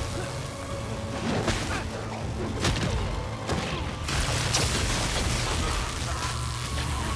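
Fight-scene soundtrack: dramatic score under a string of heavy impacts and crashes, as a body is thrown and lands among crates and bins.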